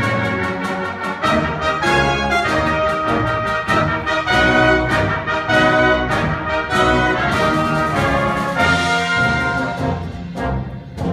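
Brass ensemble of trumpets, trombones and French horns playing a triumphal march, loud, with held chords punctuated by sharp accented notes.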